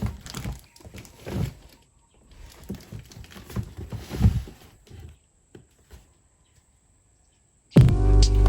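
Soft, irregular rustling and light knocks of things being handled, lasting about five seconds, then near silence. Upbeat background music starts abruptly near the end.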